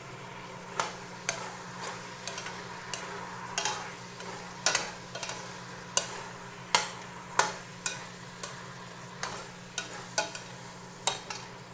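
Chopped chicken gizzards and hearts being stirred in a stainless steel stockpot over a low sizzle, the spoon clicking and scraping against the pot at irregular moments.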